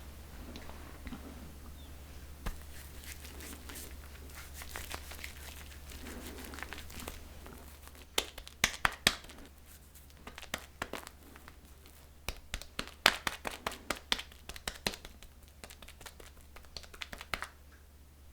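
Shaving cream being worked and spread by hand: a soft, steady foamy crackle for the first half, then irregular clusters of sharp wet squelches and pops.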